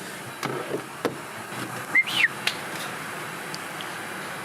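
A short, high whistle-like chirp about two seconds in that rises and then falls, among a few light clicks and knocks over steady background noise.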